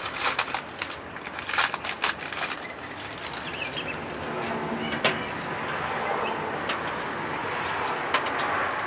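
Clicks, knocks and rustling of things being handled, mostly in the first couple of seconds, over a steady outdoor background noise. A few faint bird chirps come in the second half.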